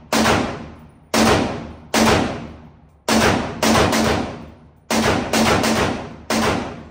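Mini Draco 7.62×39 AK-pattern pistol firing about ten shots in uneven single shots and quick doubles, each sharp crack trailing off in a long echo.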